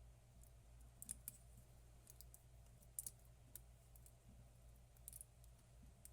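Faint, scattered small clicks and taps of tools and tiny parts being handled during a watch repair, a few a second apart, over a steady low electrical hum.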